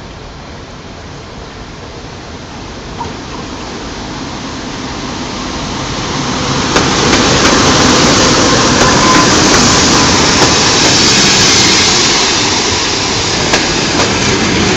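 Passenger train hauled by a TEP70BS diesel locomotive approaching and passing, its rumble growing steadily louder over the first half and then running loud and even, with a few sharp clicks near the end.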